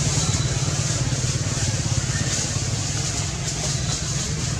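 Steady low rumble under an even hiss.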